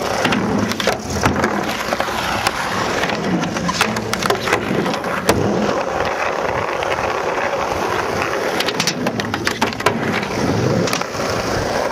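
Skateboard wheels rolling on asphalt in a steady rumble, broken by many sharp clacks of the board popping, flipping and landing.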